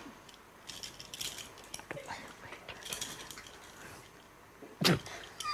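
Metal handcuffs clicking and ratcheting as they are closed around a man's wrists, with faint rustling. There is a short louder noise near the end.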